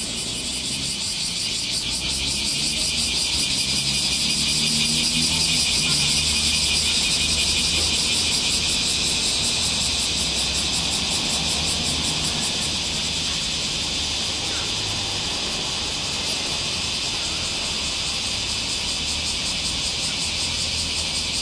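Cicada chorus: a loud, steady, high buzz with a fast pulsing texture, swelling over the first few seconds. A faint low rumble runs underneath.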